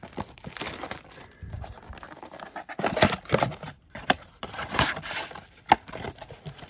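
Cardboard and foil trading-card packaging being torn open and crinkled in irregular rustling bursts: a blaster box of card packs being opened. A sharp click about two-thirds of the way through is the loudest sound.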